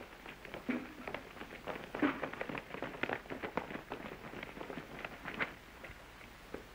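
Hurried footsteps: a quick, irregular run of steps that stops about five and a half seconds in.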